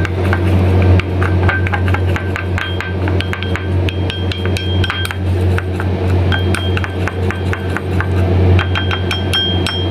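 Metal spoon stirring sauce in a ceramic bowl, clinking against the bowl's side again and again with short ringing taps. A steady low hum runs underneath.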